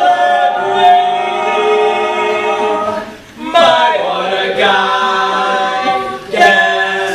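Male a cappella group singing in close harmony, holding long sustained chords, with a short break about three seconds in before the chords resume.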